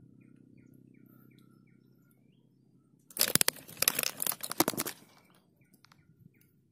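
Loud crackling and rubbing from fingers handling the phone against its microphone for about two seconds, starting about three seconds in. Around it, a faint low hum and faint short bird chirps.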